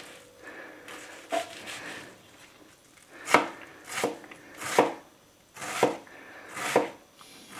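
Kitchen knife dicing an onion: a few soft cuts, then about five sharper chops roughly a second apart in the second half.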